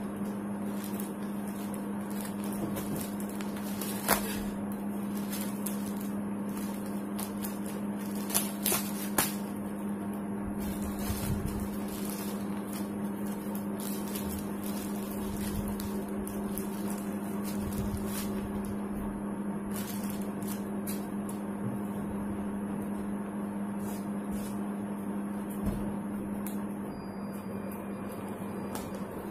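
Plastic courier wrapping crinkling and tearing as it is pulled off a small cardboard box by hand, with a few sharper snaps and rips, over a steady low electrical hum that stops shortly before the end.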